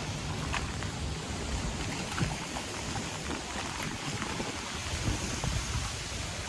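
Wind buffeting the microphone over a steady wash of water along the shore, with scattered light ticks.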